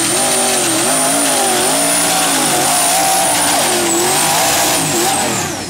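Engine of a modified mini class pulling tractor at full throttle, hauling the weight sled. Its pitch wavers up and down and a high whine rides above it. Near the end the revs and the whine drop away as the pull stops.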